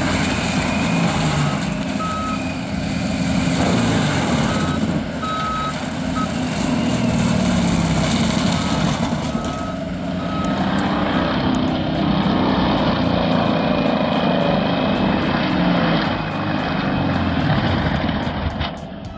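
Diesel engine of a compact track loader running steadily under work, with a reversing alarm beeping in short runs during the first half.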